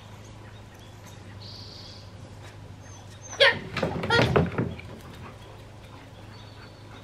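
Rottweiler giving a short run of pitched cries, each bending up and down in pitch, about three and a half seconds in.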